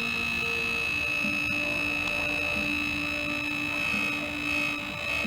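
MSI GS40 laptop cooling fan running with a steady high-pitched whine, alongside lower humming tones that shift in pitch every second or so.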